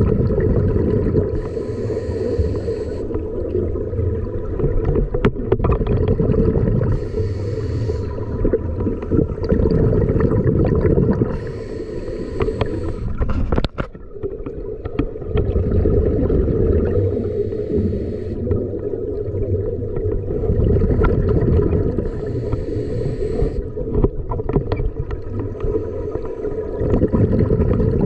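Underwater sound of a scuba diver breathing through a regulator. A hiss of inhalation comes about every five seconds, alternating with the low bubbling of exhaled air.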